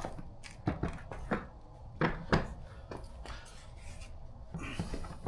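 Scattered light knocks and clicks, about eight of them, from hands handling the small generator's plastic fuel cap and tank, over a faint steady low rumble.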